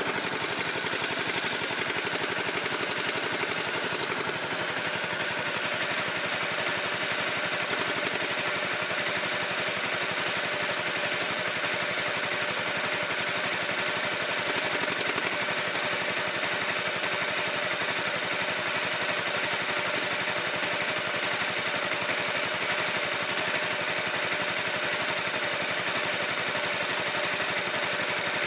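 Honda CBR250R's single-cylinder four-stroke engine idling steadily. The owner thinks he hears an intermittent double tick ("kaka… kaka…") over the idle and suspects an abnormal noise.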